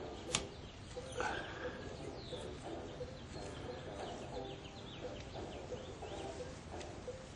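A sharp plastic click about a third of a second in, then handling rustles as a wiper blade's plastic adapter is fitted by hand, with birds chirping in the background.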